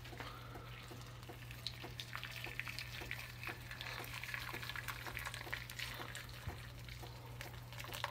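Boiling water poured from a kettle in a steady stream into a cast-iron skillet over a dried chili: splashing and trickling with many small pops, to rehydrate the chili.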